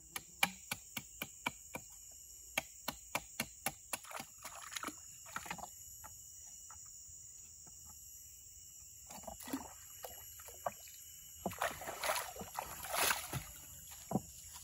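Machete striking a green bamboo tube: a quick run of sharp knocks, two to four a second, over the first five or six seconds. Later comes splashing through shallow water, over a steady buzz of jungle insects.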